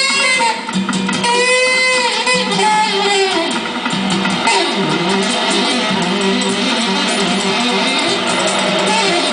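A song with guitar strumming. In the first couple of seconds a voice, likely a woman's, holds long notes that bend in pitch, and then the guitar carries on.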